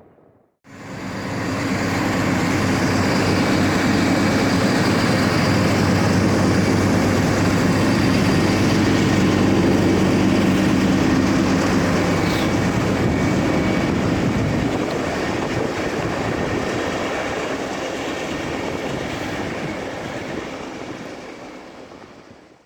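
Diesel-hauled train passing close by, its locomotive engine running with a low drone under the rumble of wheels on the rails. It comes in suddenly about half a second in, stays loud through the middle and fades away near the end.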